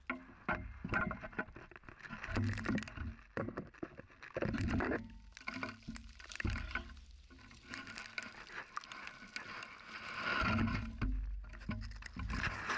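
Handling noise from a camera pushed into a hollow in the ground: irregular scraping, knocks and crackles as it rubs against soil, stones and roots, with bursts of low rumble.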